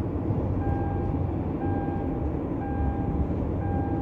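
Steady low rumble with an electronic beep repeating about once a second, each beep a little over half a second long.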